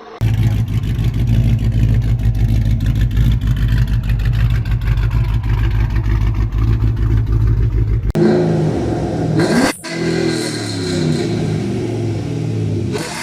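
Loud car exhaust: a deep steady rumble for about eight seconds, then the sound changes abruptly to an engine revving up and down, with a brief sharp drop about ten seconds in.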